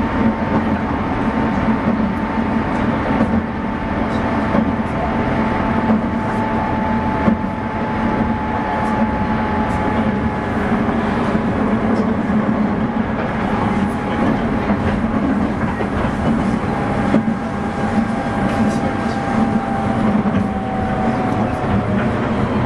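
Running noise inside a JR 201 series electric train, in motor car MoHa 200-200, which has no chopper sound: a steady rumble of wheels on rail with scattered clicks. Over it a thin whine slowly drops in pitch as the train loses speed.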